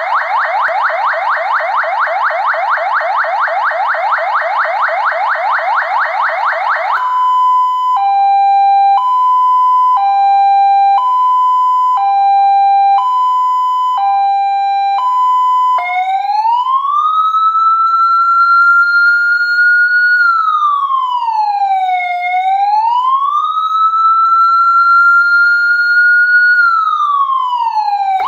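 CJB-200W electronic siren amplifier driving a YH80-1 100 W speaker, switching through siren tones: first a fast yelp of rapid repeating up-and-down sweeps, then about seven seconds in a two-note hi-lo alternating about once a second, then about sixteen seconds in a slow wail that rises and falls twice.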